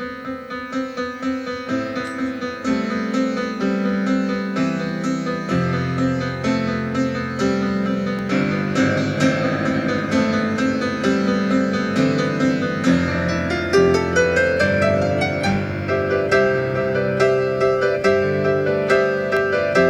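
Piano playing a slow instrumental piece, growing louder in the first few seconds, with deep bass notes coming in under the chords.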